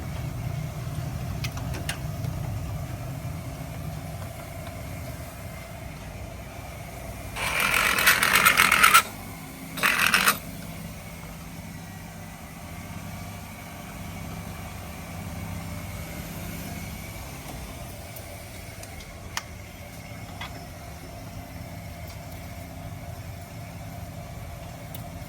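Steady low workshop hum with a few faint metal clicks, broken by two loud hissing blasts, the first about one and a half seconds long around eight seconds in, the second shorter about two seconds later.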